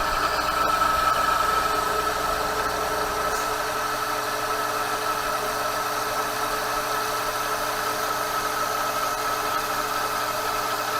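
Metal lathe turning a 12L14 steel bar with a carbide insert cutting tool, running steadily with a high tone, while a coolant mister hisses as it sprays the cut. A low hum drops away about three seconds in.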